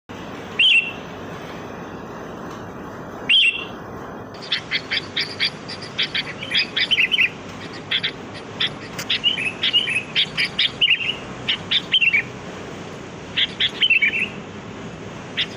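Sooty-headed bulbul calling: two loud short calls in the first few seconds, then from about four seconds in a long run of quick, bright chattering notes, over a steady hiss.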